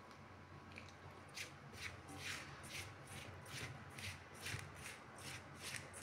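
A hand rubbing and squeezing damp rice and ragi flour in a steel bowl: soft, faint scraping strokes about two to three a second. The flour is being worked with coconut water into crumbs for puttu.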